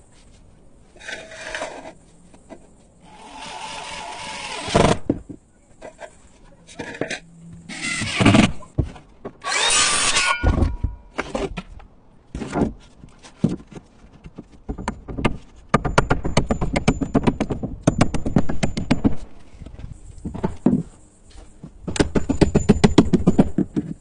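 Carpentry and roofing work on timber and sheathing: short bursts of power-tool noise, then runs of rapid, closely spaced knocks.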